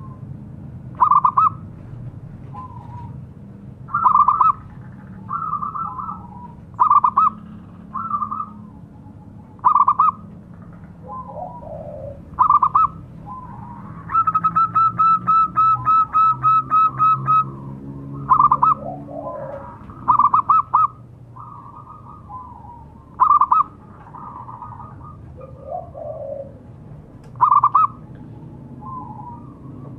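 Zebra dove (perkutut) cooing: short, loud coo notes every two to three seconds with softer coos between them, and a rapid run of about a dozen notes a little past halfway.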